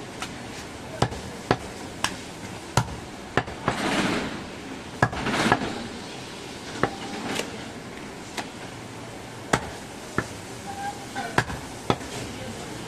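Large butcher's knife chopping goat meat on a wooden log chopping block: about a dozen sharp knocks at irregular intervals, with a couple of brief scraping noises near the middle.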